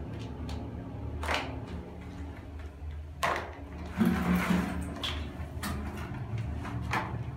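Plastic toy animals knocking against a plastic basin and tiled floor while they are washed by hand in soapy water: about five scattered knocks and taps, the loudest with a splash about four seconds in. A steady low hum underneath.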